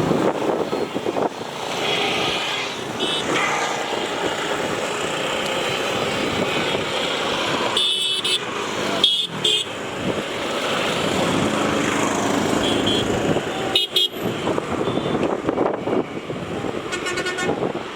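Dense mechanical and river-terminal din with several short, high horn toots sounding through it.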